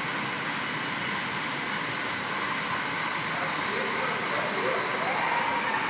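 Kärcher BD 530 Bat battery scrubber-dryer running: a steady whir and hiss from its scrubbing brush and suction motor.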